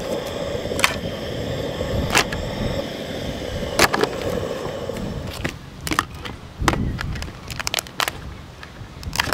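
Cooked crab and lobster shells being handled and cracked apart, giving sharp clicks and cracks that come more often in the second half. Under them is a steady rushing hiss that stops about five seconds in.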